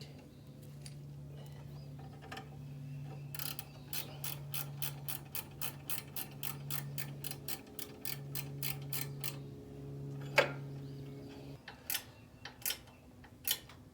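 A ratchet wrench clicking in a quick run of about five clicks a second as a nut is turned down, followed by a few single clicks. A low steady hum runs underneath, breaking off a few times.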